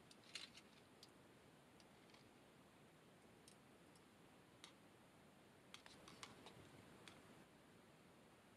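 Near silence with a few faint, scattered clicks and taps of chopsticks against a metal cooking pot while noodles are stirred and lifted.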